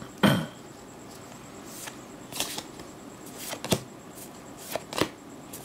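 Magic: The Gathering trading cards being handled and slid over one another as a freshly opened booster pack is flipped through: a few separate soft swishes and flicks. There is a brief louder sound just after the start.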